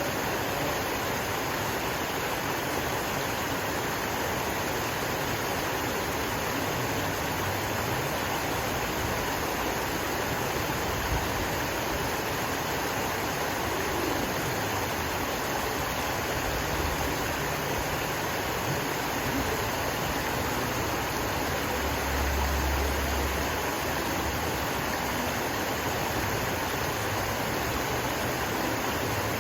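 Water from a man-made waterfall stream gushing over rocks and boulders: a steady, even rush.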